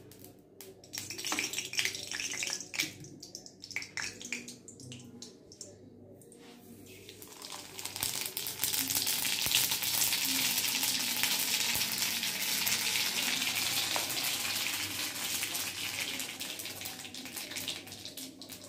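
Spices dropped into hot oil in a kadhai for a tempering, the oil sizzling hard in a steady hiss that starts about eight seconds in and eases off near the end. Before that, scattered sharp clicks and crackles.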